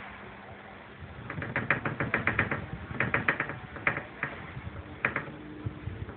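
Fast, irregular rattling and clicking of loose objects shaken by earthquake tremors, starting about a second in and dying away near the end.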